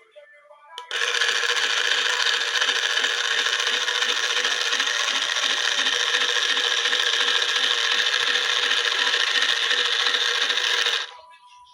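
Toy washing machine running: a loud, steady rasping hiss with a pulsing beat about four times a second, starting about a second in and cutting off suddenly near the end.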